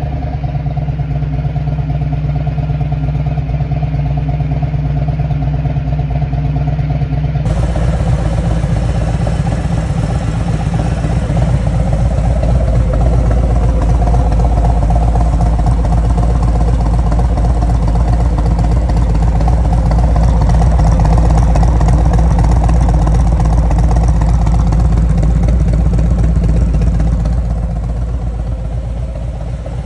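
2019 Harley-Davidson Road King's V-twin engine running at idle, heard close to the exhaust, freshly started and running steadily. The sound gets fuller about a quarter of the way in, grows a little louder through the middle and drops back near the end.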